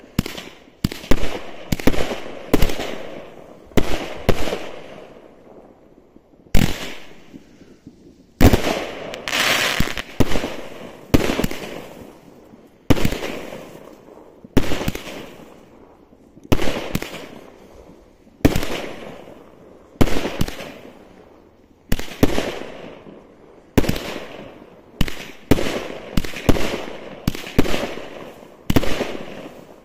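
Aerial fireworks bursting in a rapid series of sharp bangs, about one to two a second, each bang fading out over a second or so. There is a short pause of a couple of seconds before the run of bursts picks up again.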